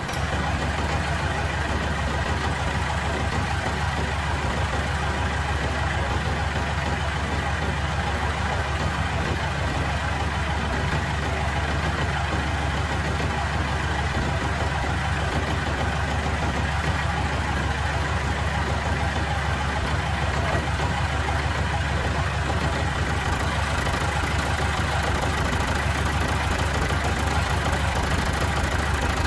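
An engine idling steadily, a low even drone with no change in speed.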